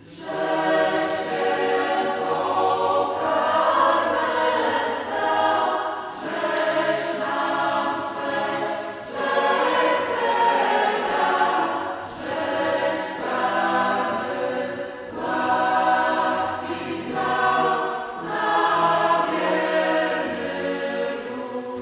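Choir singing, its phrases swelling and easing every couple of seconds, with sharp sibilant consonants cutting through between the held notes.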